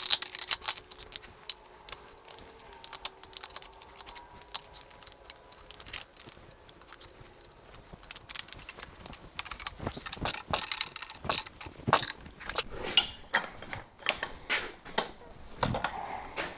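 Metal clicking and ratcheting in irregular bursts as a tool is cranked tight to bend a jockey wheel's steel frame straight. It is busiest in the second half.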